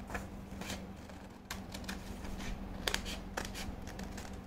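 Sheets of white paper rustling and tapping as they are handled and laid down, in a handful of short separate rustles, over a faint steady hum.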